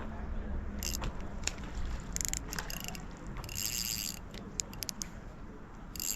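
Fishing reel ticking and buzzing in several short spells, each about half a second, while a hooked trout is being played. Scattered single clicks fall between the spells.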